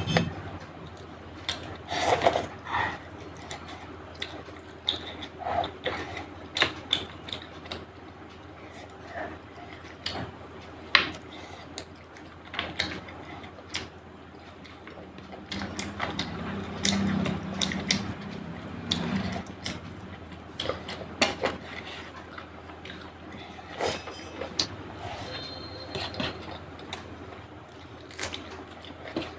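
Close-miked eating: chewing of chicken curry and rice, heard as a steady scatter of short wet clicks and smacks, with an occasional clink of the plate.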